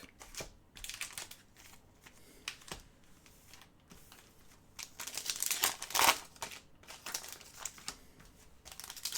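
Trading cards and their plastic or foil wrapping being handled: a few light clicks and taps, then a crinkling rustle about five seconds in and again near the end.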